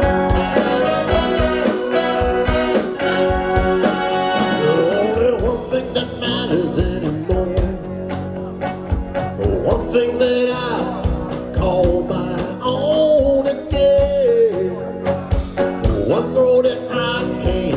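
Live blues-rock band playing an instrumental passage. Drums keep a steady beat under a bending lead melody line.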